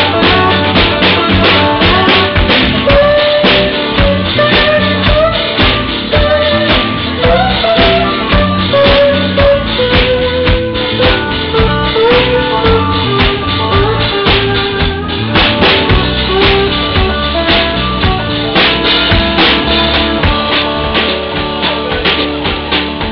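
Live blues playing, no vocals: an acoustic guitar played flat on the lap with a slide, its notes gliding from pitch to pitch, over a drum kit keeping a steady beat.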